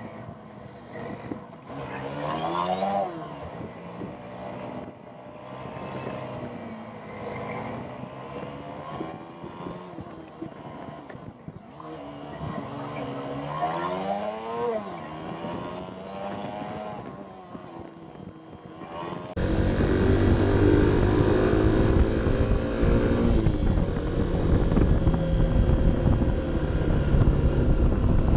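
Honda CB 125 F's single-cylinder 125 cc four-stroke engine heard from onboard, its pitch rising and falling several times as it revs through the gears on the climb. About two-thirds of the way through, the sound abruptly gets louder, with heavy wind rumble on the microphone over a steady engine note.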